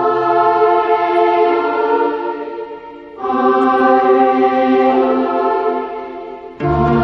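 Background music: sustained choir-like chords, each swelling and fading, with the chord changing about three seconds in and again near the end.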